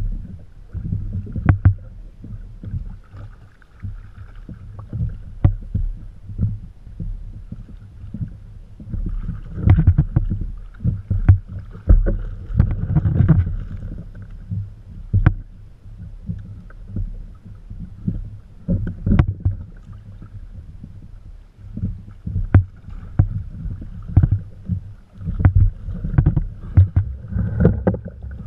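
Water lapping and splashing against a kayak hull, with scattered sharp knocks and clicks on the boat. The splashing grows louder and busier between about ten and fourteen seconds in, where a hooked blackfin tuna thrashes at the surface beside the kayak.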